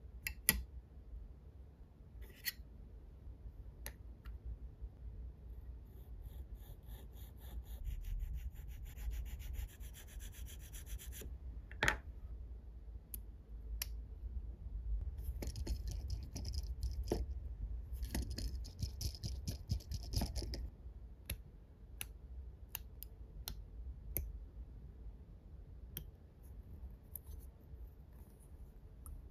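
Fingers handling a small scale-model spoked wheel with wire spokes: soft rubbing, scattered light clicks, and twice a few seconds of fine rapid ticking and scratching.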